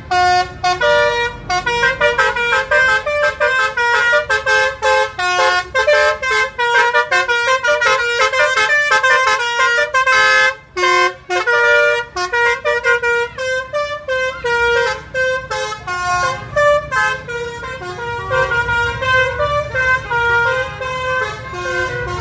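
Bus musical 'telolet' air horn playing a fast melody of short stepped notes without a break, over a low rumble that grows stronger near the end.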